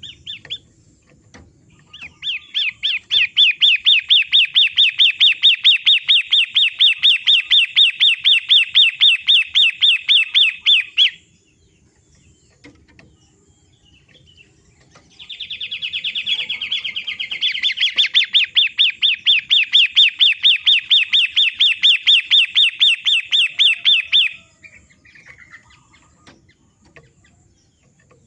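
Long-tailed shrike (pentet) song: two long runs of rapid, evenly repeated sharp notes, about five a second, separated by a few seconds' pause; the second run opens with a harsh, buzzy burst.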